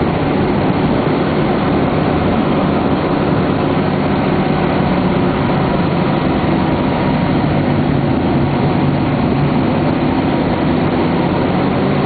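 Volvo B58 bus's diesel engine running at a steady speed, a low, even drone that does not rise or fall.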